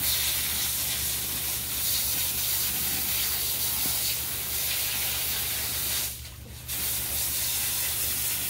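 Pistol-grip hose nozzle spraying a steady stream of water onto aquarium filter cartridges, a continuous hiss that stops for about half a second around six seconds in and then starts again.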